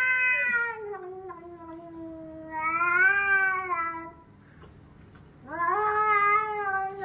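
Domestic cat yowling at a hand reaching toward it: three long, drawn-out calls that swell and slide in pitch, with short pauses between them.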